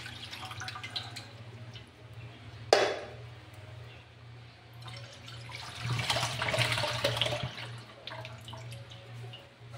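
Evaporated milk poured from a can into an aluminium wok, splashing into the milk already in the pan. There is one sharp knock a little under three seconds in, and a louder second pour in the middle that thins to a trickle near the end.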